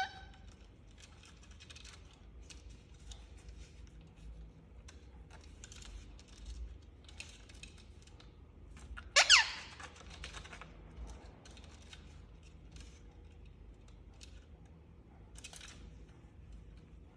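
Indian ringneck parrot giving a short call at the start and one loud, short screech about nine seconds in, with faint clicking and scratching in between.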